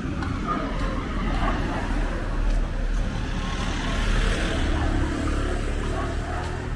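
Night street traffic: a steady low rumble of engines and tyres, swelling a little past the middle as a van drives past close by.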